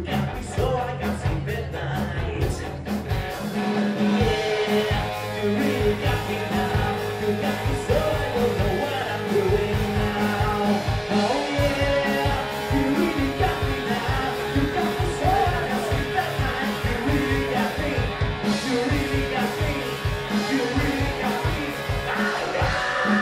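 Live rock band playing: a male singer over electric guitar, bass guitar and a drum kit with a steady beat.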